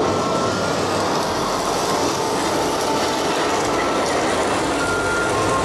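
Steady, loud rush of a staged flash flood: a large volume of water surging down the special-effects canyon, with spray splashing against the tram's window.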